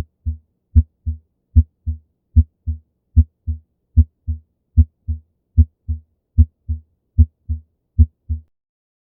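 Normal human heart sounds on auscultation: a steady lub-dub rhythm of about 75 beats a minute. Each beat is a louder first sound (S1) and a softer second sound (S2), with clean silence between them and no murmur. The beats stop about a second before the end.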